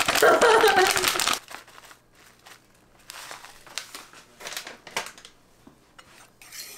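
A plastic pouch of grated Grana Padano crinkling as it is shaken out over a bowl, for about the first second and a half. After that, a few light clicks of a metal spoon in the bowl.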